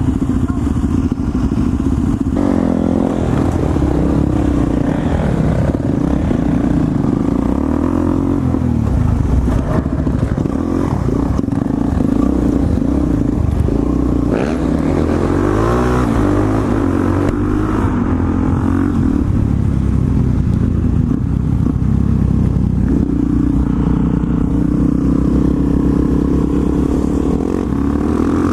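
Single-cylinder four-stroke dirt bike engine under way, its pitch rising and falling again and again as the rider opens and closes the throttle and shifts gears.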